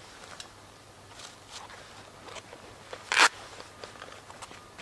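Rustling of a plastic bag and canvas backpack as items are taken out, in a string of short scuffs, with one louder, brief rip-like rustle about three seconds in.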